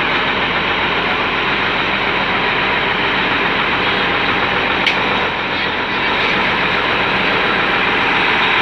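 Diesel engine of a Plasser track tamping machine running steadily as the machine creeps along the track, with a single sharp click about five seconds in.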